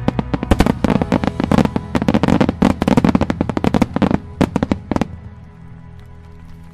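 A starmine barrage of aerial firework shells bursting in a rapid, dense string of bangs that stops about five seconds in, over music playing along with the show.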